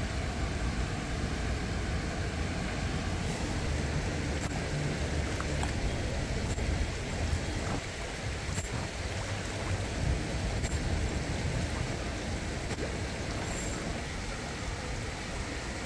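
Steady outdoor background noise: a low rumble under an even hiss, with a few faint high clicks scattered through.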